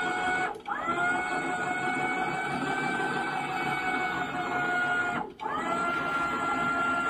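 Electric trailer winch motor whining steadily as it lowers the Lada Niva down the trailer. It stops briefly twice, about half a second in and about five seconds in, and each time spins back up with a short rise in pitch.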